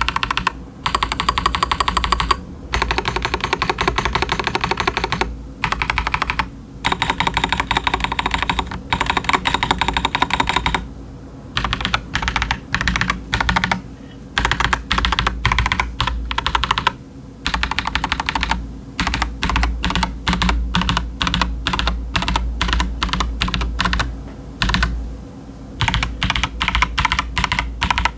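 Typing on a stock Akko 5075s mechanical keyboard with Bolsa Supply Techno Violet linear switches and doubleshot PBT ASA-profile keycaps. Fast runs of keystrokes come with short pauses between them, and after about ten seconds the typing turns to slower, separate keystrokes.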